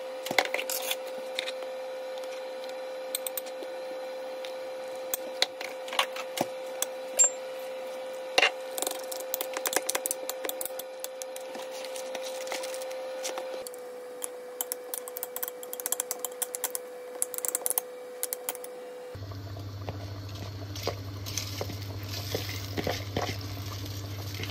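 Light clicks and taps of kitchen utensils and a spice box against a ceramic bowl, over a steady hum. About three-quarters of the way through, the hum drops to a lower one as soaked rice is tipped into a pot of stock.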